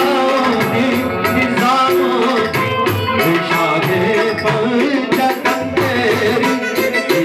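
Live Sufi qawwali-style devotional music: tabla drumming under a keyboard and harmonium melody, with vocals.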